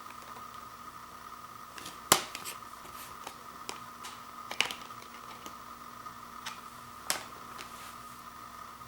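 Sharp plastic clicks and taps from a Blu-ray case being handled, the loudest about two seconds in and others near four and a half and seven seconds, over a steady faint hum.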